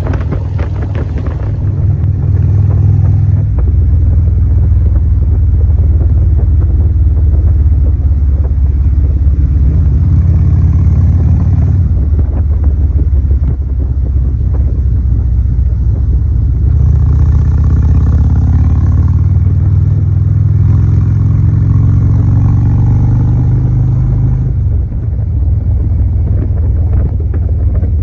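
Loud, deep, steady rumble from a car, mostly low bass, shifting in pitch and level every few seconds.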